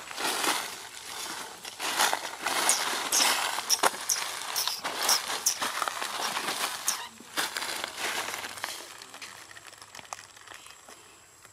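Dry leaf litter crunching and rustling underfoot, with a few short high chirps in the middle; it thins out and fades over the last few seconds.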